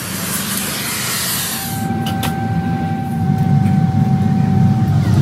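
Oxy-fuel cutting torch hissing as it cuts through a steel bar, stopping suddenly about two seconds in. Then a forge furnace running: a steady low rumble with a thin steady whine and a couple of sharp metal clinks, getting louder near the end.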